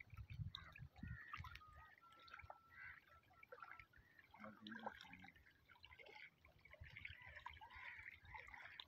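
Near silence: faint ambience of water lapping gently at a pebble shore.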